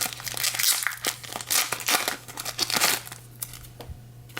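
Card pack's foil wrapper crinkling and tearing as it is opened, a run of rustles that dies down about three seconds in, over a low steady hum.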